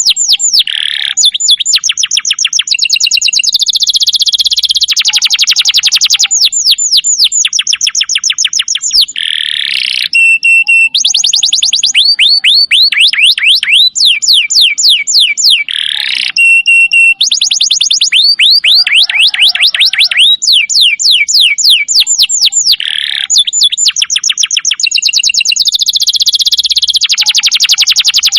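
Domestic canary singing: fast trills of rapidly repeated downward-sweeping notes, alternating with buzzy rolls and short steady whistled notes.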